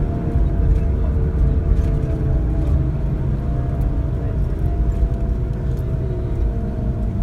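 Steady low engine and road rumble inside a moving bus, with a thin, slightly wavering tone above it: the strange sound in the bus that the riders keep remarking on.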